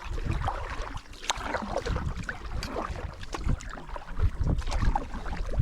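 Water splashing and sloshing in irregular bursts, as from wading through shallow creek water, with wind rumbling on the microphone.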